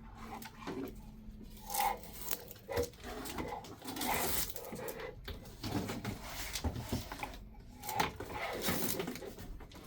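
Scattered rustling, scraping and soft knocks of packaging and parts being handled by hand.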